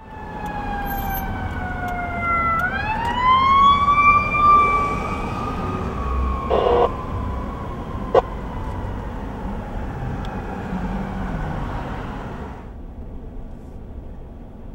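Emergency vehicle siren wailing over traffic noise: its pitch slides down, rises sharply about two and a half seconds in, then falls slowly and fades out near the end. Two brief knocks sound midway.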